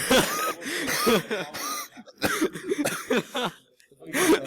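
A person's voice making short non-word vocal sounds in broken bursts, with a brief pause near the end.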